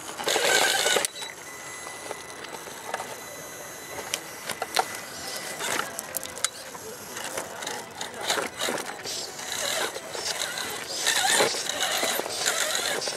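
RC rock crawler inching over rock: a thin motor whine for the first few seconds, with its tyres and chassis scraping and clicking on the stone.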